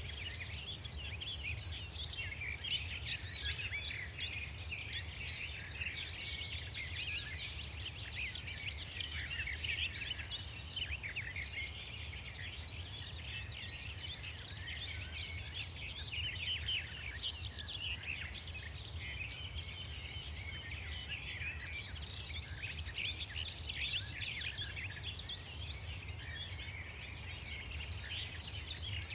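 Many small birds chirping and twittering at once, a dense and continuous chorus of quick overlapping calls, over a steady low rumble.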